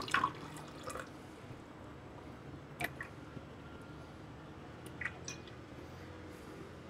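Water poured in small amounts into a glass tumbler, with faint trickles and drips and a few light taps about three and five seconds in.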